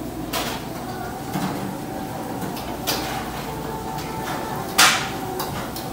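Several sharp clinks and clacks of serving tongs and dishes at a buffet counter over a steady background din, the loudest near the end.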